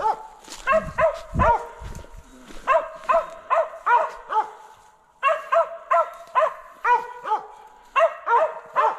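Mountain cur barking over and over, about three barks a second, with a short pause partway through: the steady tree bark of a squirrel dog that has a squirrel treed.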